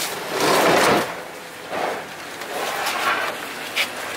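Things being slid and dragged across a pickup truck's rubber bed mat. The scraping is loudest for about half a second near the start, goes on more softly, and a short knock comes near the end.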